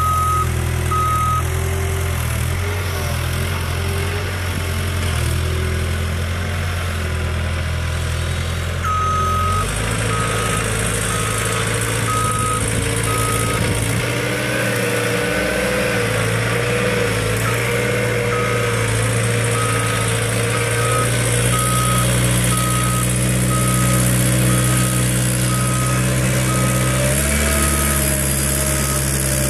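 Caterpillar skid-steer loader's diesel engine running hard while it works dirt on a steep slope, its engine note shifting about a third of the way in and again near the end. Its backup alarm beeps steadily in stretches: briefly at the start, again about nine seconds in, then from a little past halfway to the end.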